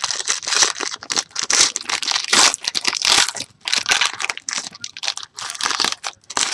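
Foil wrapper of a Panini basketball trading-card pack being torn open and crinkled by hand, a dense run of crackling and tearing.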